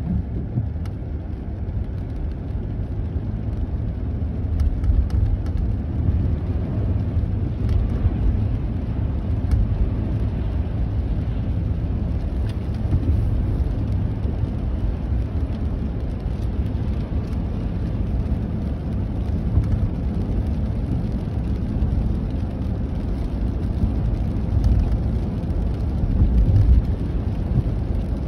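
Steady low rumble of a car being driven on a wet road, heard from inside the cabin: tyre and engine noise with no distinct events.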